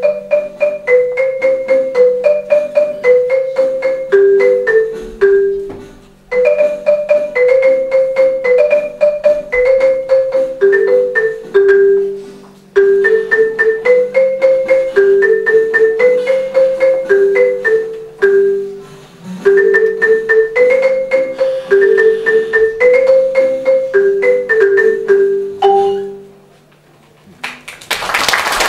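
Marimba played with mallets: a quick melody of rapidly struck notes in four phrases, each fading briefly before the next. Applause breaks out near the end.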